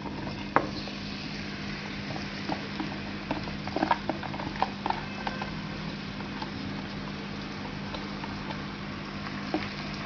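Sliced onions frying in hot oil in a pan, a steady sizzle, with scattered light knocks and scrapes from a wooden spatula and a plastic box against the pan. The knocks cluster around the middle.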